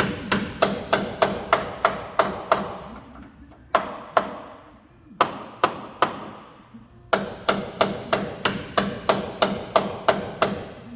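Hammer blows on steel, each with a short metallic ring, striking about three times a second. A quick run of about nine blows comes first, then three spaced single blows, then another run of about eleven near the end.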